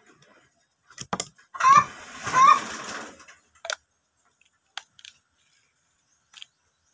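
A chicken calls loudly twice around two seconds in. A few sharp clicks and knocks come from plastic pipe and metal antenna parts being handled and fitted together.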